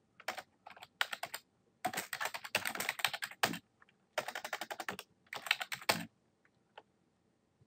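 Typing on a computer keyboard: quick runs of key clicks in several bursts, thinning to a few single clicks about six seconds in.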